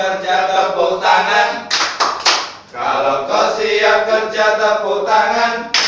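A group of men singing a yel-yel cheer in unison, with a few sharp hand claps about two seconds in and again near the end.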